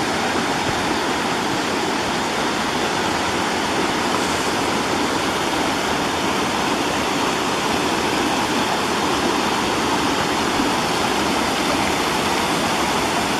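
Waterfall rushing steadily: a constant, even roar of falling water.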